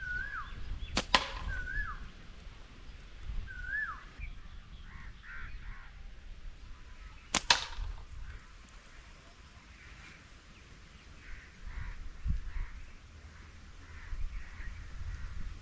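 Two slingshot shots, each a sharp crack, about six seconds apart. A bird calls a few times with short rising-and-falling notes around the first shot.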